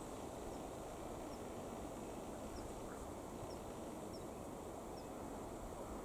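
Steady low outdoor rumble of wind on the microphone, with faint short high chirps about once a second.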